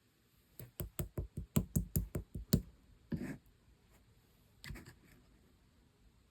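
Clear slime being pressed and played with by hand: a quick run of about ten sharp pops in two seconds, then a short squish, and another fainter one about a second and a half later.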